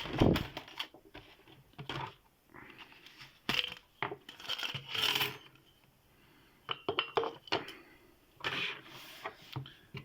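Small metal lock picks clinking and rattling as they are rummaged through and handled, with irregular clicks and short scraping sounds.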